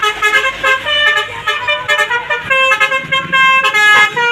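Telolet basuri multi-tone bus horn playing a melody: a quick run of held notes that jump in pitch from one to the next.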